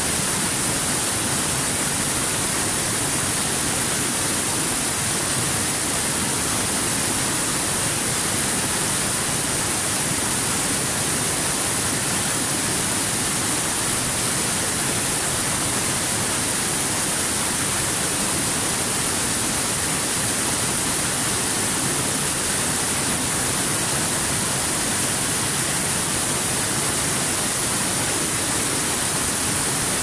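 Small waterfall on a rocky stream pouring over boulders into a pool: a steady, even rush of falling water.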